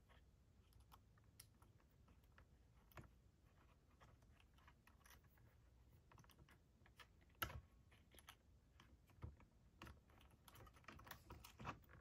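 Faint, scattered small clicks and ticks of the STIHL MS210's throttle linkage rod and carburetor parts being handled and worked into place by hand, the sharpest click about seven and a half seconds in.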